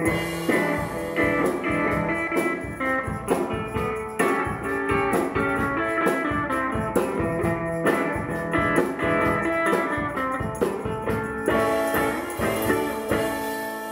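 Live rock band: electric guitar played through a small amp over a drum kit and shaken tambourines. About two seconds before the end the drumming stops and a final guitar chord is left ringing.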